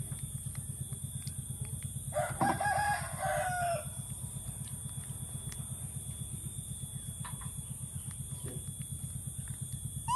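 A rooster crows once, starting about two seconds in and lasting about a second and a half. Under it runs a steady low pulsing hum, about six or seven beats a second, and a constant high hiss.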